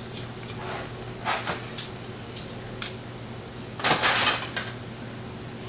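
Pickling cucumbers being handled and pushed into a glass mason jar: a series of short scrapes, rustles and light knocks, the loudest and longest about four seconds in.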